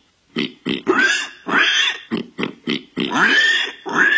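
Warthog grunting: a rapid series of short grunts, with longer, higher calls that rise in pitch mixed in from about a second in.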